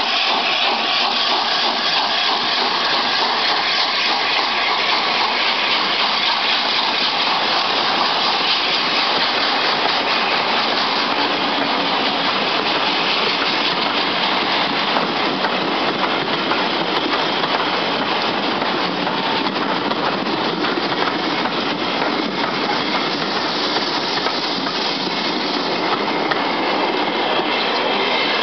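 Steam train pulling away behind LNER A4 Pacific locomotive Bittern: its coaches rolling past, wheels clattering on the rails, as a loud, steady noise.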